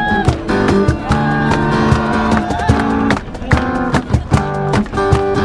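Acoustic guitars strummed in steady chords while a group of voices sings a song together.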